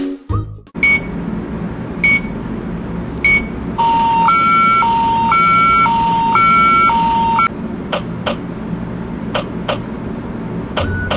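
Electronic sound effects from a toy doctor's cart over a steady low hiss. Three short beeps come first, then a two-tone hi-lo siren that alternates for a few seconds, then a few sharp clicks.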